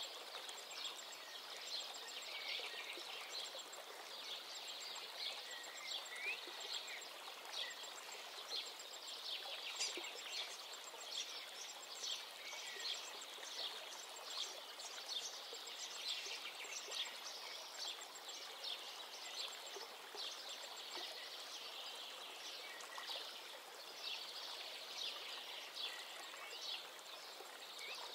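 Thick minced-meat mixture sizzling in a pot as it cooks, a steady hiss with frequent small crackles.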